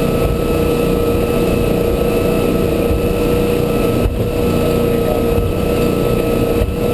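Volvo Penta V8-270-C-A V8 sterndrive boat running steadily at cruise, about 3600 RPM and 27 knots, heard from inside the cabin: a steady low rumble with a steady tone over it.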